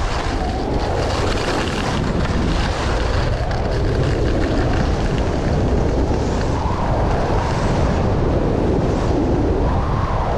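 Loud, steady rush of wind buffeting the microphone, swelling and easing every couple of seconds.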